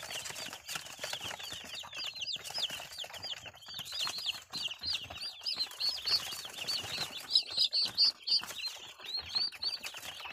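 A crowd of newly hatched chicks peeping without pause, many short high cheeps overlapping several times a second, with light scratching and tapping in between.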